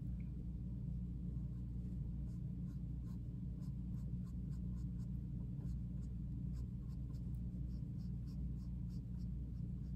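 A colored pencil shading on fabric: quick, repeated short scratches, busiest in the second half, over a steady low hum.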